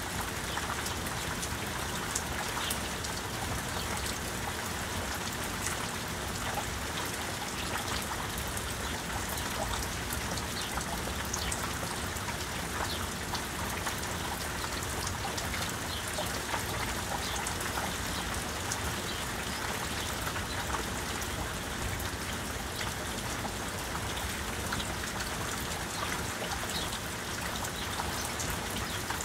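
Steady rain falling, with many separate drops ticking sharply nearby.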